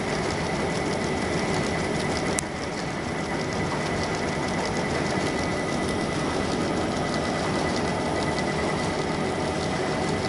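YC520RY paper-cup printing machine running at speed, a steady fast mechanical clatter with a constant high whine. There is a single sharp click about two and a half seconds in.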